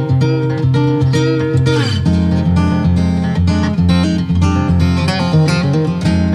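Guitar music with plucked and strummed notes. About two seconds in, a falling glide leads into a lower, fuller repeated figure.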